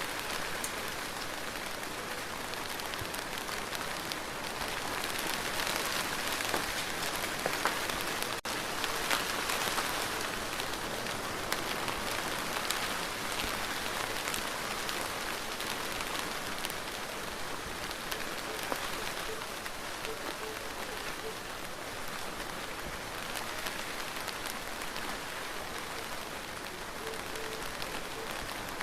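Steady rain falling on a surface, a dense even hiss with many separate drops ticking through it.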